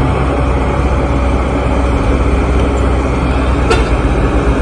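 Heavy diesel engine running steadily with a low rumble, with one sharp clank about three and a half seconds in.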